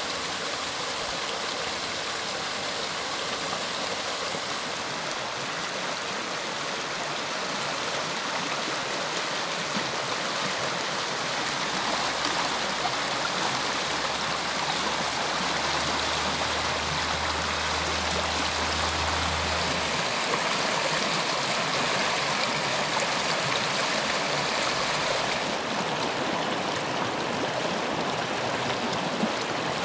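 Shallow river water rushing and splashing over stones, a steady, continuous rush. A low steady hum sits underneath for several seconds midway, and the rush turns a little duller near the end.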